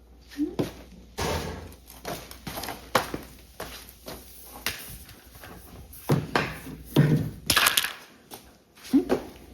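An irregular string of knocks, thuds and clatter, as things are handled and bumped. There are two heavier clusters of bangs about six and seven seconds in.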